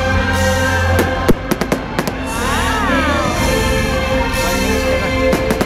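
Fireworks bursting: a rapid run of about six sharp bangs between one and two seconds in, and two more near the end, over music playing throughout.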